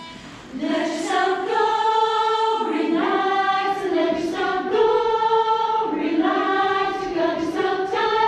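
A group of voices singing a melody together in long held notes, starting about half a second in.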